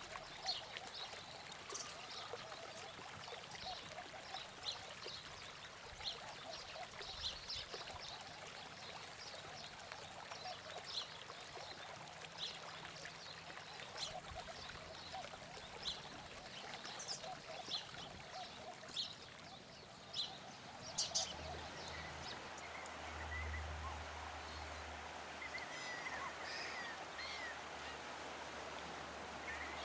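Wild birds chirping with many short high calls over a steady rushing background like running water. About two-thirds of the way through the background changes: a low steady hum comes in and different, lower chirps take over.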